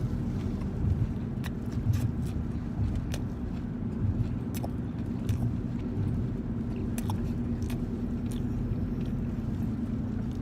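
A person biting into and chewing a chicken sandwich on a croissant bun: scattered small mouth clicks over a steady low hum.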